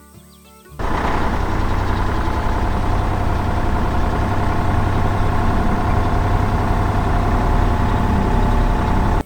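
Heavy construction vehicle's engine running steadily, a loud sound effect that starts suddenly about a second in and stops suddenly near the end.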